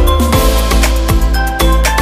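Electronic background music with a steady beat, deep kick drums and held synth notes.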